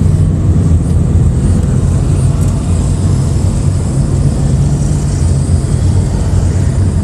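2014 Ford Mustang's engine running close by at steady low revs, a deep even drone with no revving.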